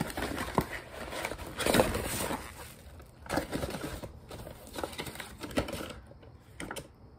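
Cardboard box being opened and handled, its flaps scraping and paper inside crinkling in irregular rustles. Loudest about two seconds in, dying down near the end.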